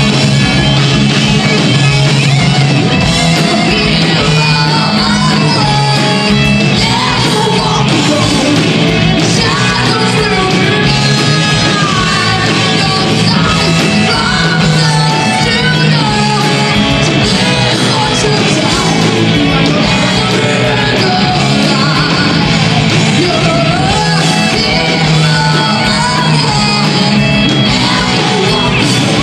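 Metal band playing live: distorted electric guitar and drums, with a female vocalist's shouted, yelled vocals over them.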